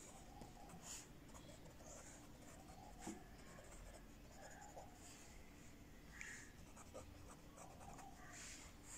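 Felt-tip pen writing on lined paper: faint, short scratching strokes of the tip across the page, with a light tap about three seconds in.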